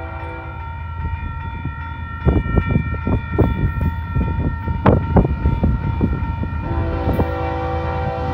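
Approaching freight locomotive's multi-chime air horn sounding steadily, its chord changing near the end as more notes come in. In the middle, a run of irregular sharp thumps sits over the horn.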